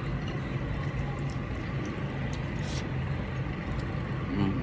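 A steady low machine hum with a thin high whine over it, with a few small clicks from someone mixing rice and curry with their fingers, and a brief voiced murmur near the end.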